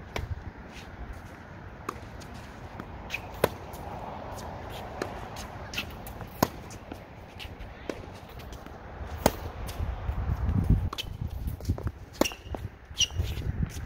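Tennis balls struck by racquets in a baseline rally: sharp pops about every one and a half seconds, the louder hits about every three seconds with fainter ones between. Near the end, low gusts of wind hit the microphone.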